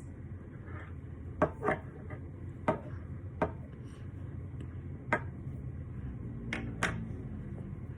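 Hard chunks of cornstarch cracking sharply as they are bitten, about seven crisp snaps spaced irregularly, two close pairs among them.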